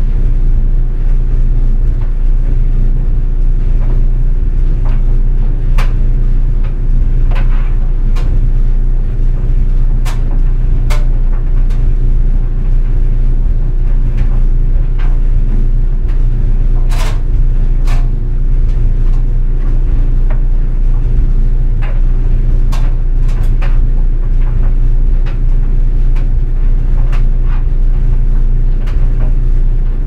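GE Spacemaker DSKS333E clothes dryer running, a steady low hum from the motor and turning drum. Over it come irregular sharp clicks and scrapes as a jeans button and zipper catch on the metal drum, the loudest about halfway through.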